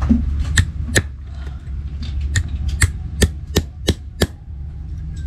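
Small hammer striking a brick to chip it, about eight sharp knocks, the last five coming quicker, about three a second.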